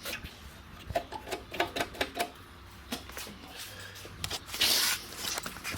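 A small gasoline engine's primer bulb being pressed over and over, giving a run of irregular sharp clicks, about two or three a second, to prime an engine that hasn't been started in a long time. There is a brief louder rustling hiss about four and a half seconds in.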